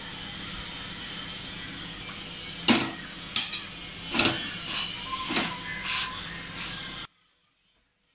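An onion paratha sizzles in ghee on a hot chapati tawa. From about three seconds in there are several louder bursts of sizzling and light knocks as it is pressed and moved by hand. The sound cuts off abruptly about a second before the end.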